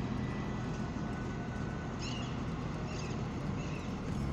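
Small birds chirping about three times, short high calls, over a steady low engine drone and outdoor background hum.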